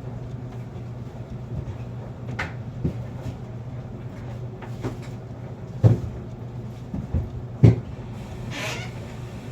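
Steady low machine hum, with several separate knocks and thumps from things being handled; the two loudest come about six and eight seconds in, and a short rustle follows near the end.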